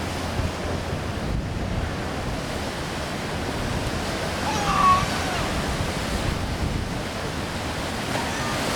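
Steady rush of wind and water, with wind buffeting the microphone. A brief high-pitched sound cuts through about halfway in.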